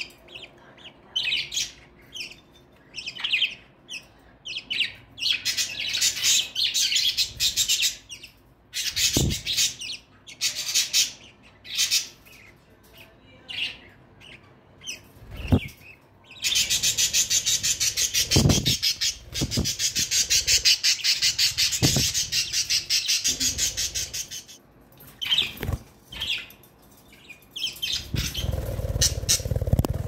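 A pair of budgerigars chattering and chirping in short bursts, with a long run of very fast repeated chirps for several seconds in the middle. A few soft knocks are also heard.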